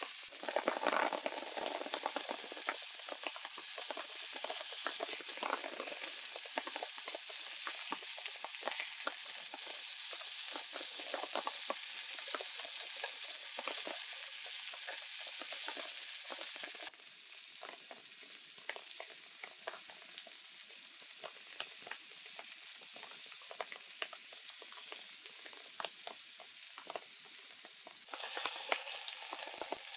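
Minced-meat patties frying in a camp frying pan: a steady sizzle of hot fat with many small pops and spits. It turns quieter a little past halfway and loud again near the end.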